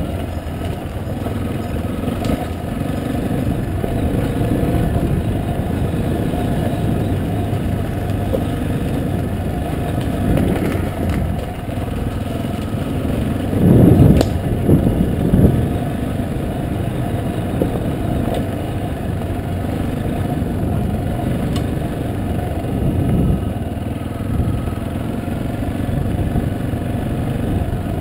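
Yamaha Serow's single-cylinder four-stroke engine running as the trail bike rides along, with a louder surge lasting a couple of seconds about halfway through.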